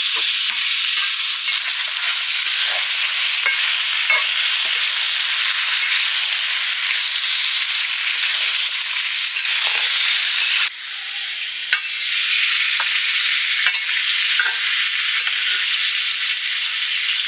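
Duck meat frying with spices and chili powder in a hot pan: a steady sizzle, with short scrapes and clicks of a spoon stirring it. The sizzle drops a little about ten seconds in.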